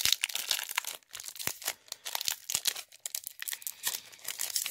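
Foil wrapper of a Pokémon card booster pack crinkling as it is handled and torn open: a quick run of sharp crackles, thickest in the first second.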